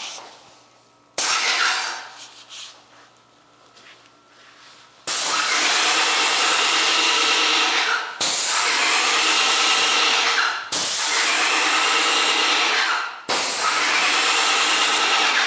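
TackLife electric airless paint sprayer spraying paint through its gun onto a door. A short burst comes about a second in, then four long passes of about two and a half seconds each. Each is a loud, steady spray hiss with a whine in it that starts and stops sharply as the trigger is pulled and released.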